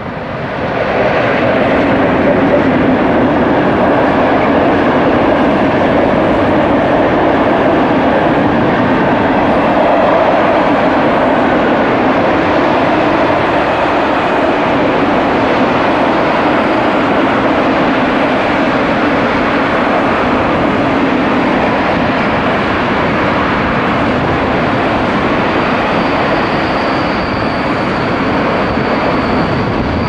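ET41 electric locomotive and its long train of Eaos open freight wagons rolling past close by: a steady rumble of wheels on rails that swells about a second in as the locomotive draws level. A thin high squeal comes in near the end.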